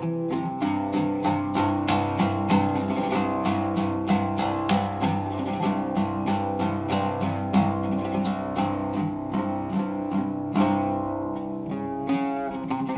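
Solo Arabic oud with a cedar soundboard, played with a plectrum: an unaccompanied improvisation in a maqam, fast runs of plucked notes over ringing lower strings.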